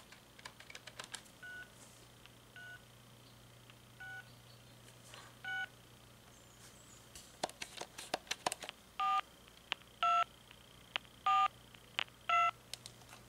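Touch-tone beeps and dialling clicks from a DialGizmo pulse-to-tone converter, heard through a trimline phone's earpiece. The phone is dialling in pulse mode, and the converter answers with short two-tone DTMF beeps, four fainter ones early and four louder ones after a burst of rapid clicks near the middle. The converter is working, but to the owner the sound isn't correct.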